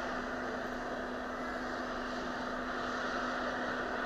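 Army helicopter's engine running steadily on the ground: an even drone with a low, steady hum underneath.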